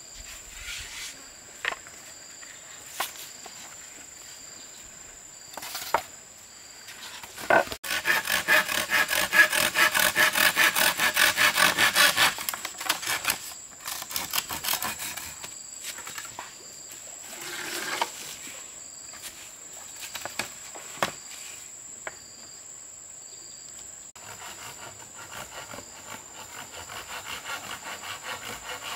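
Hand saw cutting wood in fast, even back-and-forth strokes: a loud spell of about four or five strokes a second starting about eight seconds in, and another near the end. Scattered single knocks of wood fall in between.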